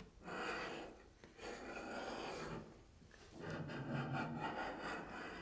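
Steel dividers scribing arcs into a sheet of tin plate: the point scratches across the metal in three strokes, the last one the longest at about two seconds.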